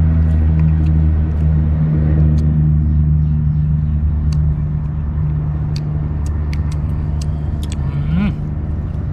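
An engine running steadily with a low, even hum that eases off slightly over several seconds, with faint scattered clicks on top.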